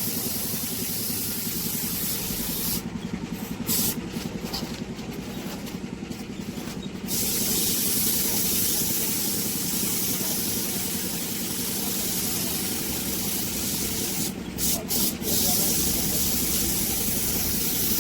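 Compressed-air paint spray gun hissing as car paint is sprayed. Between about three and seven seconds in, and briefly again near the end, it stops and starts in short bursts. A steady low hum runs underneath.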